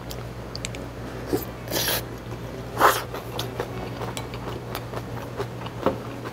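Close-miked mouth sounds of a person chewing a bite of kimchi and rice, with wet clicks throughout and two short breathy bursts about two and three seconds in. There are light clicks of a wooden spoon against a bowl as more rice is scooped.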